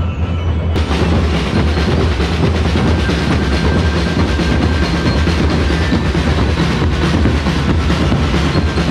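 Ati-Atihan street-dance drum band playing a steady, driving percussion beat, loud and dense.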